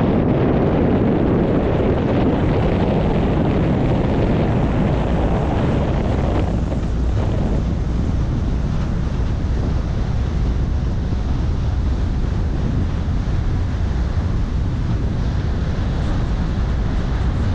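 Steady wind buffeting the microphone over the rush of water from a boat under way on a lake. The noise eases a little about six seconds in.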